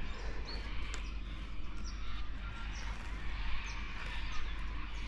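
Birds calling in the background, short high chirps repeating over a steady low rumble, with a single sharp click about a second in.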